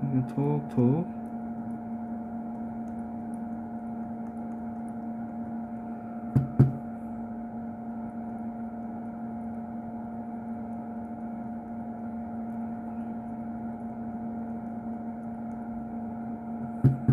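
A steady electrical hum holding one fixed pitch throughout, with two quick taps about six seconds in and another near the end.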